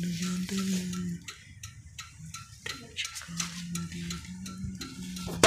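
A low electrical buzz that switches on and off in short stretches, with light ticking about three times a second, from a tractor's newly wired lights running with the indicators on. Near the end comes a single sharp metallic clank with a ringing tail.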